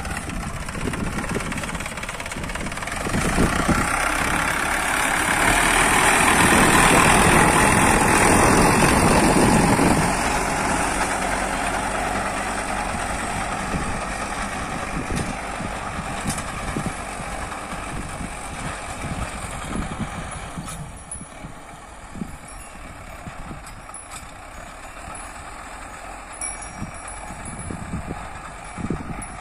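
Indo Farm 3065 DI tractor's four-cylinder diesel engine running under load as it pulls a cultivator through the soil. It is loudest in the first ten seconds, then fades steadily as the tractor moves away.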